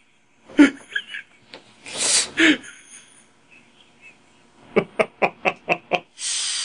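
A man laughing quietly: a breathy snort of air, then a run of about seven quick chuckles near the end.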